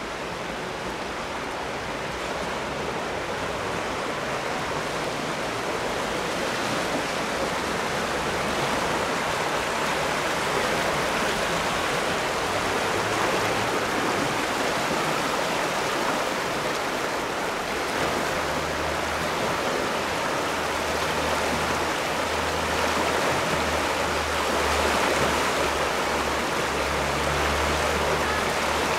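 Fast-flowing floodwater of a swollen river rushing and churning in turbulent boils, a steady noise that grows louder over the first ten seconds or so.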